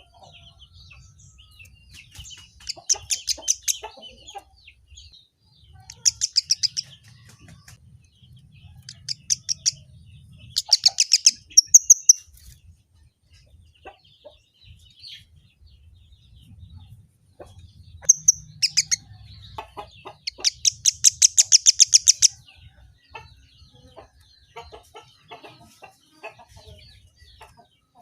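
Kemade (emprit kaji) bird singing: repeated bursts of rapid, high trilling notes, the longest lasting about two seconds, with softer chirps in between.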